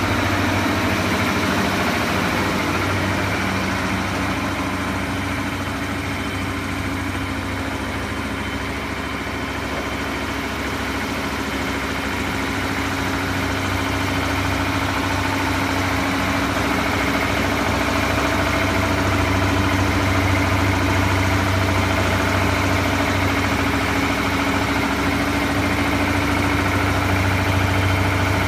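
Small CNG compressor (DAVY MF-50, 200 bar) running loaded with a steady mechanical hum; it grows a little quieter for a few seconds, then comes back up.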